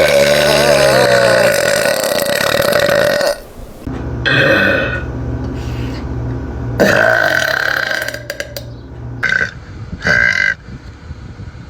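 A person's loud, long, low burps. The first lasts about three seconds, a second runs from about four to eight seconds, and two short ones follow near the end.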